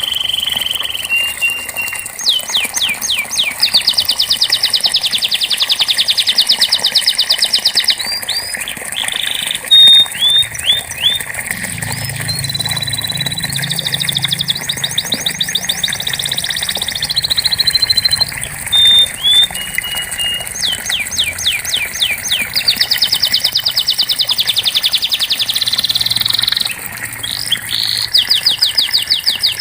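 Domestic canary singing: long rolls of very fast repeated high notes lasting several seconds each, alternating with short whistled notes and chirps.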